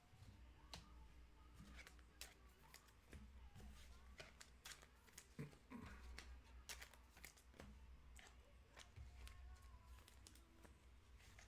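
Faint, scattered clicks and rustles of trading cards and packaging being handled.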